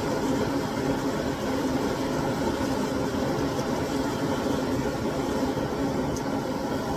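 Steady roar of a gas cooker burner flame under a cooking pot, holding level throughout.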